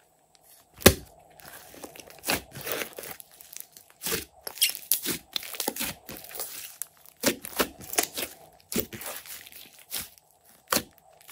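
Thick pink clay-mixed slime being squeezed and pressed by hand, giving off irregular sticky pops and crackles, the loudest pop about a second in.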